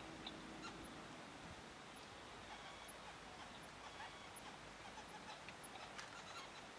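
Faint night-time ambience: a steady low hiss with scattered short, high chirps and squeaks.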